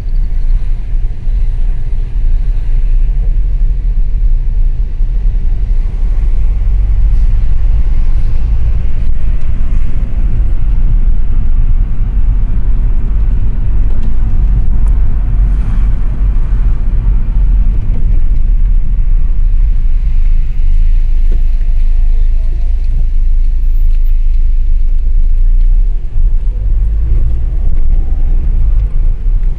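Steady low rumble of a moving car, engine and road noise, heard from inside the car.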